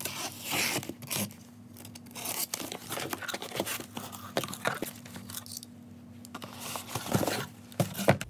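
Cardboard shipping box being opened by hand: packing tape cut and torn, then the flaps pulled open, with cardboard scraping and rustling in irregular bursts and short sharp strokes.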